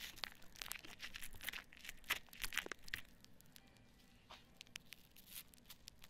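Close, faint crackling and popping of foam bubbles as fingers squish and rub foam over the ears of a binaural microphone. The pops come thick for the first three seconds, then thin out to scattered single pops.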